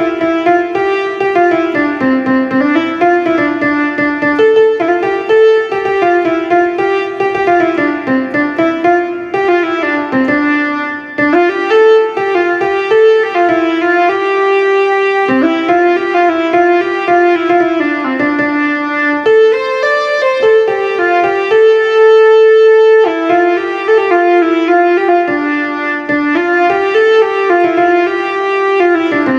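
Korg Pa 300 arranger keyboard playing a melody on one of its Indian instrument tones: a single line of sustained notes moving in small steps, with one long held note about three quarters of the way through.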